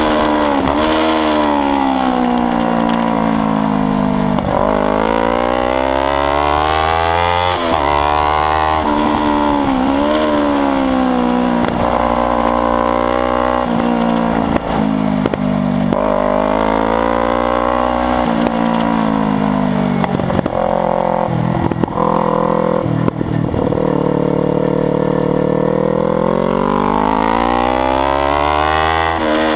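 Kawasaki Ninja 300's parallel-twin engine at full track pace, loud, its revs climbing and falling again and again, with a few brief sharp drops in the pitch.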